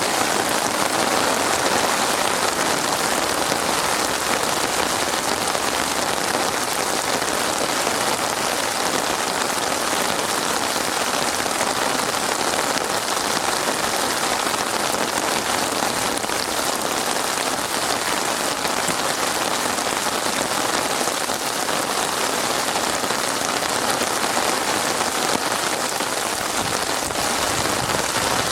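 Steady rain falling on a surface, a continuous even patter with no let-up.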